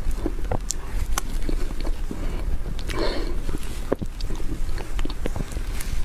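Close-miked wet mouth sounds of eating soft buttercream cake: smacking and small sticky clicks as the cream is chewed, with a metal spoon scooping through the frosting.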